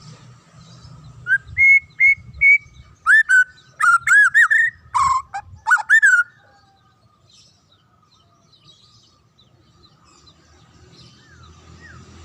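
White-rumped shama (murai batu) song: three short, level whistled notes, then a quick run of loud, clear rising and falling slurred notes that stops about six seconds in. Fainter repeated slurred notes follow near the end.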